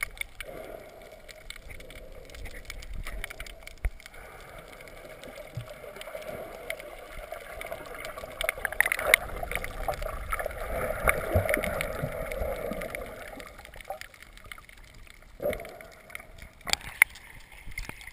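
Underwater ambience through a camera's waterproof housing: muffled gurgling and rushing water with scattered faint clicks, swelling in the middle. Near the end there are a few sharp splashes as the camera comes up through the surface.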